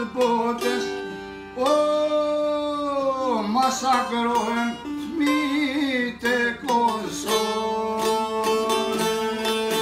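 A man singing an Albanian song in long, wavering notes, accompanied by a long-necked plucked lute; from about seven seconds in the lute plays a rapid, even run of plucked notes.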